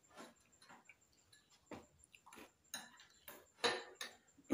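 Eating by hand from a plate: an irregular string of short, faint clicks and smacks from chewing and fingers working rice and curry on the plate.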